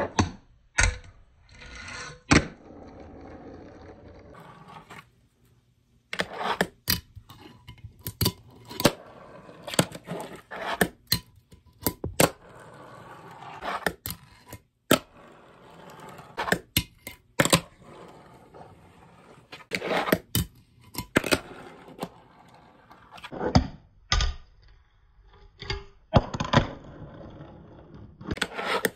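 Fingerboard tricks on a wooden table with a wooden ledge: repeated sharp clacks of the tiny board popping and landing on wood, with the rolling of its small wheels and scrapes of grinds along the ledge between them.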